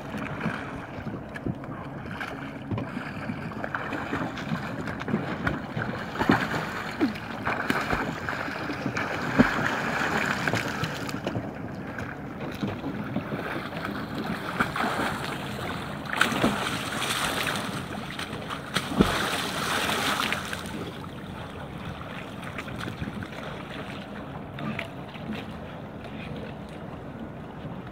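Water splashing and sloshing, with small clicks and knocks of brittle ice plates breaking and bumping, as a person in a drysuit swims and crawls through thin broken ice. It grows busier and louder twice, about nine seconds in and again around sixteen to twenty seconds in.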